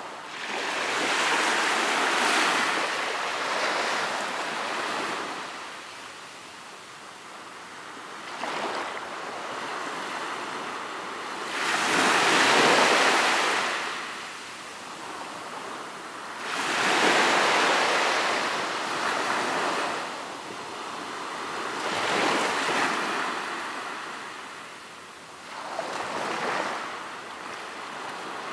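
Ocean waves breaking on a beach, each wash of surf swelling and fading every four to five seconds, with some wind on the microphone.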